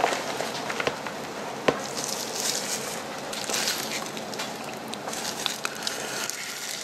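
Thin disposable plastic gloves crinkling and rustling as they handle a clear plastic cup of crumbly beetle mat, with scattered small clicks and one sharp click about a second and a half in.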